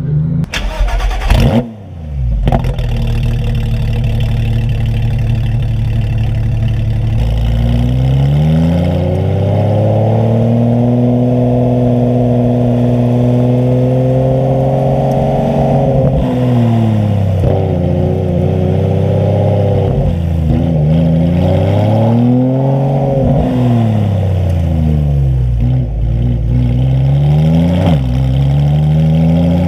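Porsche 991.2 GT3 RS's naturally aspirated flat-six through a straight-piped, muffler-deleted exhaust. It runs at a steady pitch, then climbs as the car accelerates and holds there. In the second half it drops and rises again several times as the throttle is lifted and reapplied.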